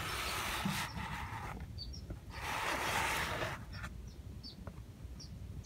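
Two rushes of hiss-like noise, the first about a second and a half long and the second a little over a second, with a few short high chirps from newly hatched baby cockatiels in the background.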